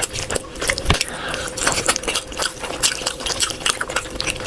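A person chewing and biting food, with many small irregular crunchy clicks packed close together.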